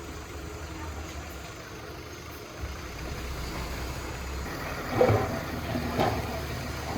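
Heavy diesel earthmoving engine running at a steady low idle, with a sudden louder sound about five seconds in and a smaller one a second later.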